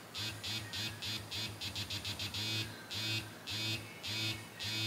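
Tracy's Dog OG Pro2 toy's motor buzzing on its seventh setting, a pulsing pattern that switches on and off several times a second, mixing short pulses with a few longer ones.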